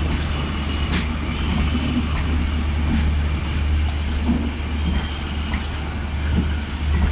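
Passenger coaches of a departing express train rolling past: a steady low rumble of wheels on rail, with a few sharp clicks.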